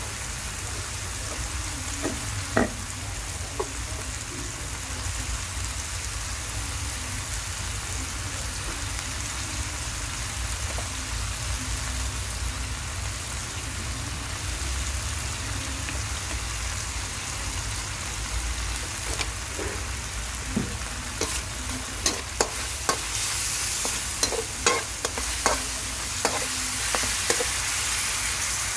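Beef slices sizzling in hot oil in a wok, a steady hiss. In the last third a spatula scrapes and clacks against the wok as the meat is stirred through the sauce, a quick run of sharp knocks.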